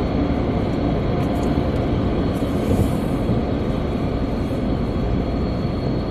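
A towel being wiped across a car's windshield by hand, giving a brief rubbing swish about two and a half seconds in, over a steady low rumble.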